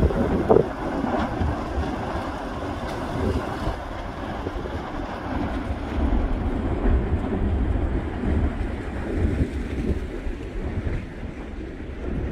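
Steady, surf-like roar and low rumble of an erupting volcanic cone fountaining lava, with wind buffeting the microphone.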